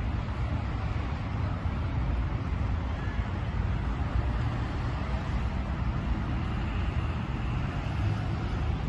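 Steady outdoor ambience: a continuous low rumble under an even wash of noise, with faint distant voices.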